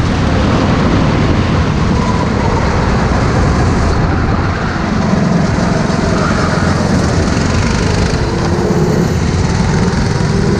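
Racing kart engine running steadily at modest speed, with the engines of other karts close alongside.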